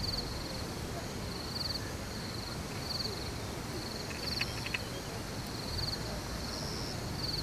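Insects calling from the hillside: short pulsed chirps repeating about once every second or so, over a steady low rumble.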